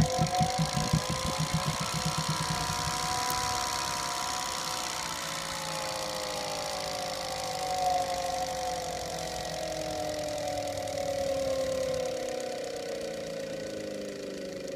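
Brushed DC electric motor run up on a single 12-volt battery. In the first couple of seconds it spins up with a quickening pulsing, then runs on with a steady whirring howl. The pitch of the howl climbs for about three seconds and then slowly falls. The howl comes from the motor's front end and persists with the commutator freshly cleaned, and the owner does not know its cause.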